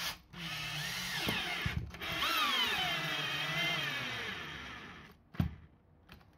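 Cordless drill driving a long bolt through a rubber washer into timber. The motor runs in two bursts with a brief stop after about two seconds, and the second burst slows steadily in pitch and fades out as the drill bogs down: its battery is running flat as the bolt cuts into unpiloted wood.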